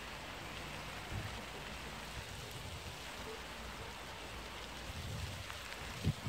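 Steady rain falling, an even hiss, with low thumps near the end.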